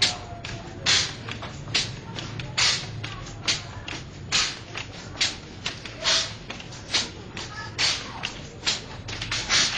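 Soundtrack music with a steady percussive beat: a sharp hit a little less than once a second, fainter hits between them, over a low sustained hum.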